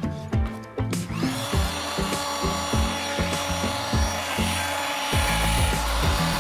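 A power tool starts about a second in and runs steadily, with a high, hissing cutting or grinding noise over background music.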